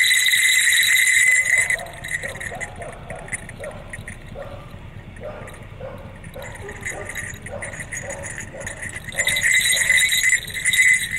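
Small metal jingle bells on the horns of a jester mask jingling as the wearer shakes his head, for the first second and a half and again from about nine seconds in. In between, short muffled vocal noises.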